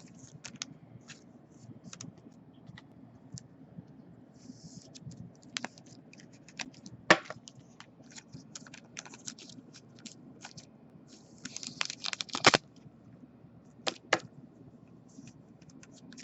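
Trading cards being handled: scattered light clicks, taps and scrapes of cards and plastic sleeves on a table, with a quick flurry of them about twelve seconds in.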